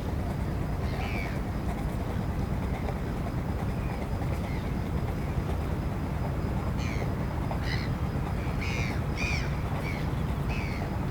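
Birds calling in short, slightly falling calls, a few at first and then a run of about five near the end, over a steady low rumble.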